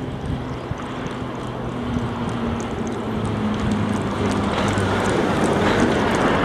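M62M 'Gagarin' diesel locomotive running light, its engine drone growing steadily louder as it approaches, with some wind noise on the microphone.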